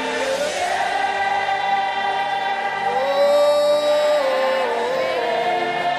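Gospel choir and congregation singing long, held notes together, the melody stepping down to a new pitch about three seconds in and shifting again near the end.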